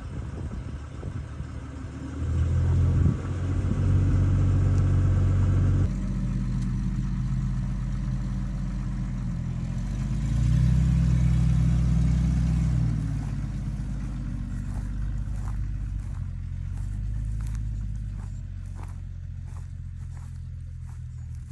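A vehicle engine running as it drives, a low hum that swells and eases as the revs change, with a louder stretch about halfway through. Faint clicks and rustles come in near the end.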